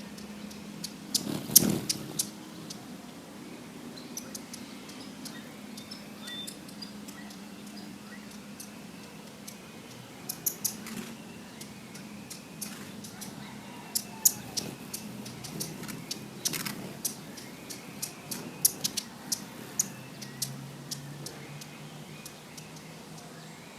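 Broad-billed hummingbird giving short, sharp chip notes, singly and in quick clusters. The loudest comes about one and a half seconds in, and the notes come thicker in the second half.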